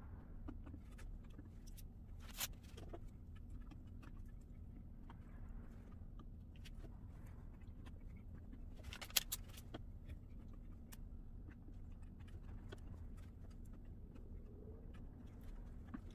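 Faint handling noise from hands working wet papier-mâché strips onto a mask: scattered soft ticks and taps, with a sharp click about two and a half seconds in and a short cluster of clicks around nine seconds, over a low steady hum.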